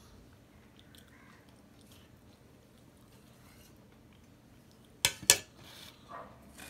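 Two sharp metallic clanks in quick succession near the end, with a brief ring: a small stainless steel bowl knocking as it is put down among steel plates after greens are served from it.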